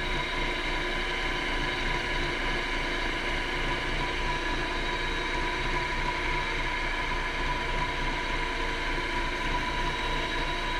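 Wood lathe running at a steady speed, its motor giving a steady hum and whine, while a cloth loaded with diamond polishing paste rubs lightly on the spinning pen blank.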